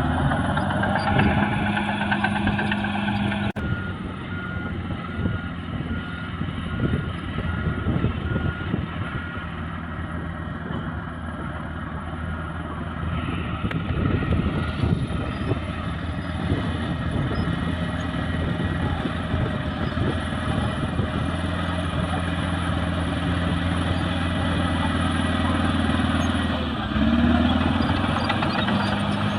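Caterpillar D6R crawler bulldozer working, its diesel engine running steadily under a dense clatter of the machine. A few seconds in, a backup alarm beeps at an even pace for about six seconds.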